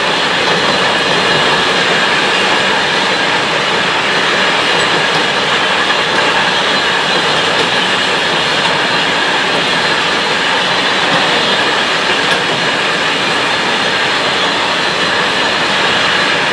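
Long freight train of enclosed car-carrier wagons rolling past at speed: steel wheels on rail give a loud, steady rolling rush with a thin high ringing over it.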